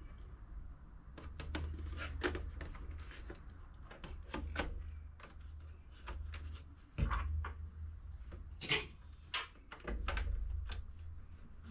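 Hard parts of a PlayStation 5 being handled during reassembly: scattered clicks and knocks, the loudest about three quarters of the way through, over a low rumble.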